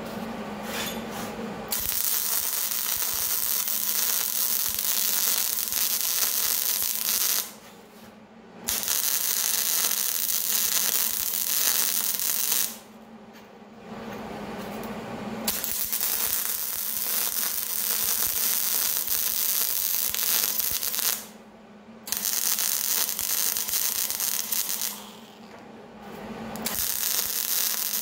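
MIG welding arc crackling as a steel washer is welded onto the end of a steel pipe, in five runs of a few seconds each with short pauses between them.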